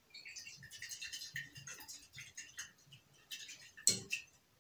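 Faint glassware sounds of a titration: acid running from a burette into a glass conical flask as the flask is swirled, with small irregular ticks and one sharper glass clink about four seconds in.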